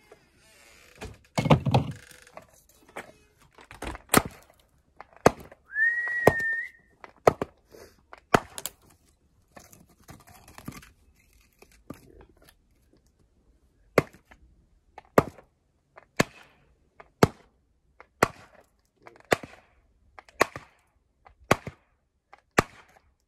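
Hatchet chopping kindling on a wooden chopping block: sharp, separate chops, coming about once a second in the second half, with a heavier thud near the start. A short whistle that rises and then holds steady sounds once about six seconds in.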